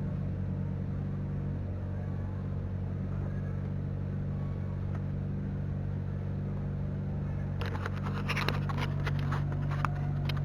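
A steady low mechanical hum throughout. From about eight seconds in, a quick run of clicks and scrapes of plastic parts being handled and pushed together as a scooter's headlight housing is test-fitted.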